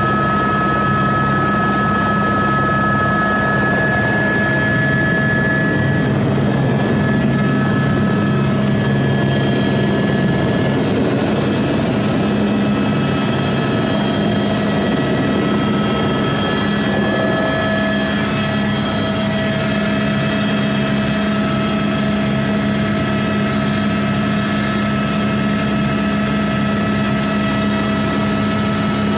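Helicopter's turbine and rotor running, heard from inside the cabin: a loud, steady hum with a constant whine above it.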